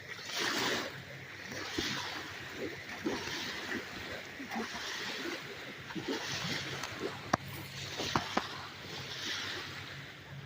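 Water splashing and sloshing in repeated washes, one roughly every second and a half, with a few sharp clicks.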